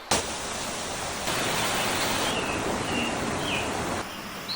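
Waterfall rushing: a steady hiss of falling water that steps louder about a second in and drops back near the end, with a few short bird chirps in the middle.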